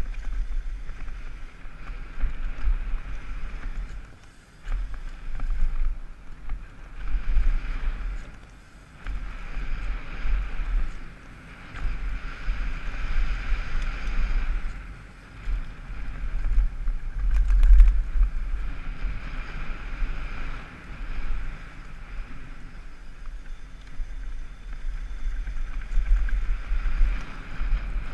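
Wind rumbling and buffeting over a helmet camera's microphone during a fast downhill mountain bike descent, swelling and dropping with the rider's speed, over the rolling noise of the tyres on a dry, packed-dirt jump trail.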